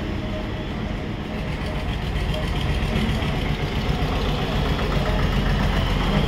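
Steady hum and rush of an inverter's cooling fan running while the unit is powered from its battery.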